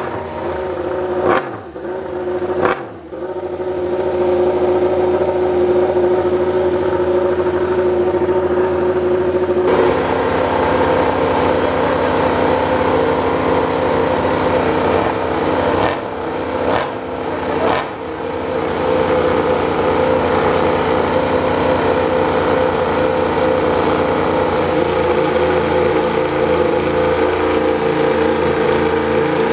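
Yamaha YZR-M1 MotoGP inline-four engines running steadily on paddock stands, with quick throttle blips about a second and a half and three seconds in, and a few more between about sixteen and eighteen seconds. The engine note changes about ten seconds in, and again near the end as a second engine runs alongside.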